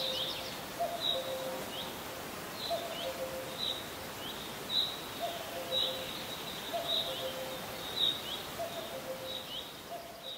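Birdsong: a low two-note call repeating, a short higher note followed by a longer lower one, over quick, high, downward-sweeping chirps from other birds.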